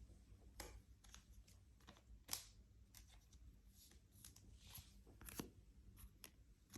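Near silence with faint rustles and ticks of trading cards being handled and slid one behind another through a pack, a little louder about two seconds in and again near five seconds.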